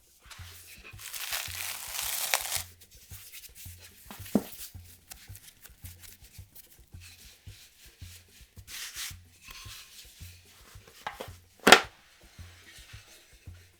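Kitchen handling sounds over soft background music with a steady low beat: a rustle lasting about a second and a half near the start, a shorter rustle later, and one sharp knock near the end.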